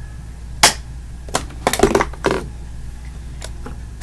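Plastic jar of Vaseline healing jelly being handled and opened: one sharp click about half a second in, then a quick cluster of clicks and taps from the jar and its lid.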